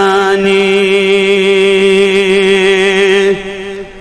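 A man's voice chanting the end of a sung refrain in Kashmiri, holding one long steady note. It breaks off about three seconds in and fades briefly.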